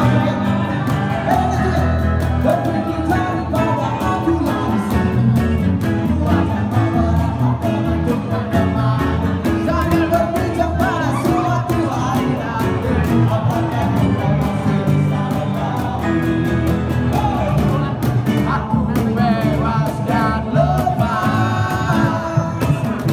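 Live band music: a male singer singing into a microphone over guitar and drums.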